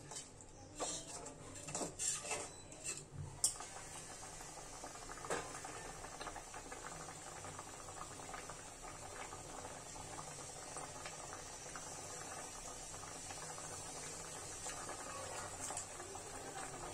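A metal spatula scraping and clinking in a metal kadai for the first three seconds or so as the hilsa curry is stirred, then the thin yogurt gravy bubbling at a steady boil as it reduces.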